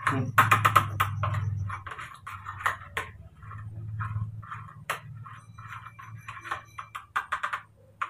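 A spoon tapping and scraping in a small plastic food tray in quick, uneven strokes, over a low steady hum.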